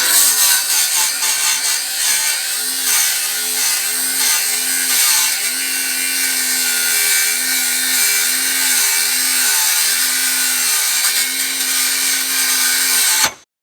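Angle grinder with a cutoff wheel cutting through an exhaust pipe. It runs steadily, its motor tone dipping and recovering again and again as the wheel bites into the metal, and it stops suddenly near the end.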